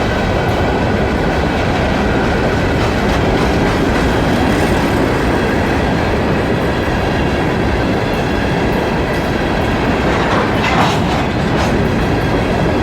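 Freight train cars rolling past at close range: a loud, steady rumble of steel wheels on the rails with a clickety-clack of wheels over the rail joints, the knocking that the uploader puts down to the track. A brief higher-pitched sound rises out of it about ten seconds in.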